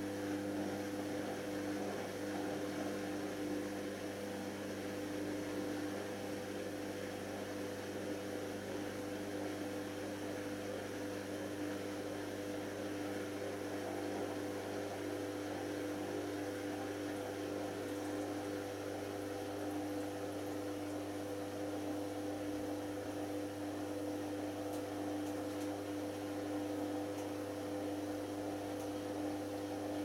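Hoover Optima OPH714D washing machine's drain pump humming steadily as it pumps out the wash water at the end of the wash phase.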